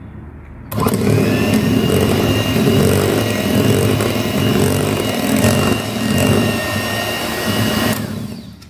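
Electric hand mixer running, its twin beaters working flour into creamed butter-and-egg cake batter in a glass bowl. A steady motor whine starts suddenly about a second in and stops shortly before the end.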